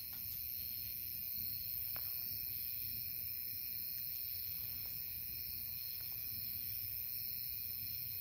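Steady chorus of night insects, crickets or katydids, a constant high-pitched trilling, over a low rumble. There are a few faint ticks about two, five and six seconds in.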